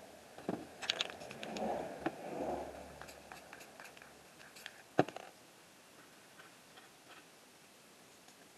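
Scattered light clicks and taps of hand work at a painting table, with a few soft thuds in the first few seconds and one sharper click about five seconds in.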